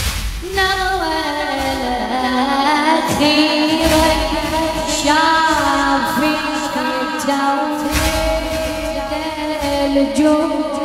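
Background music: a noha, a mournful devotional lament sung by one voice in long, wavering held notes. Low, deep beats come about every four seconds underneath.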